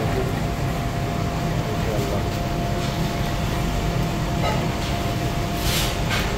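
Steady drone of ventilation fans, with a thin steady whine over a low rumble, and a short hiss near the end.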